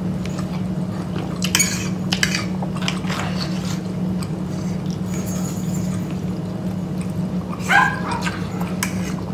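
Pet dogs barking and yipping a few times, the clearest call near the end, over a steady low hum.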